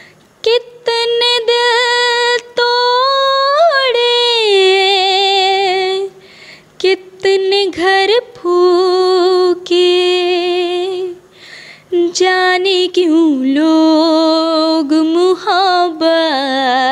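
A young woman singing a Hindi song unaccompanied, in long held notes with wide vibrato. She sings phrase by phrase with short breaks for breath, and her voice swells up and back down about four seconds in.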